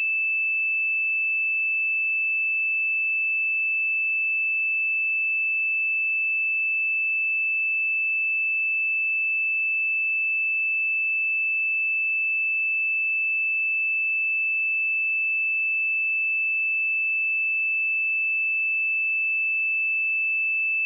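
A steady, unbroken 2634 Hz sine-wave test tone: one pure, high-pitched note held at a constant level.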